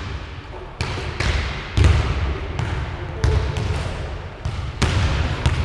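Basketballs bouncing on a hardwood gym floor: about eight irregular thuds, each ringing briefly in the large hall.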